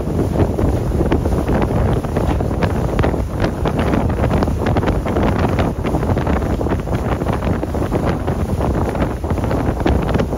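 Wind buffeting the microphone on a fishing boat under way, over water rushing past the hull with a crackle of splashing spray.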